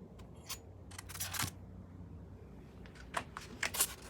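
Small metal rifle parts being handled: a few sharp clicks and light clinks with short rustles, over a steady low hum.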